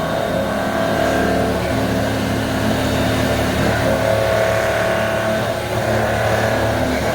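CNC milling machine running as it machines a part: a steady mechanical whine made of several tones that shift in pitch every second or two, over a low hum.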